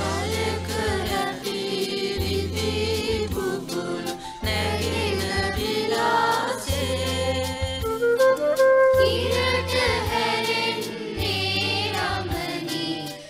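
Children's choir singing a Sinhala song with instrumental backing, a bass part changing note about every second under the voices.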